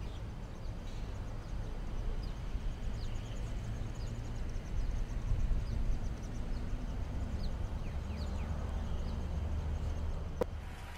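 Outdoor park ambience: a steady low rumble of wind on the phone microphone, with faint, short high-pitched bird chirps every second or so and a single sharp click near the end.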